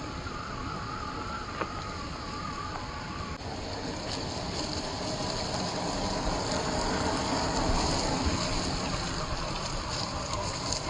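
Electric motors and geared drivetrains of 1/10-scale RC crawlers whining as they crawl over rocks and dry leaves, with tyre and suspension noise. A thin wavering whine in the first few seconds gives way suddenly to a louder, rougher running noise.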